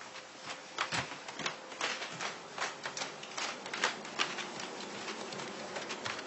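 Irregular sharp clicks and crackles, a few a second, over a faint steady hum.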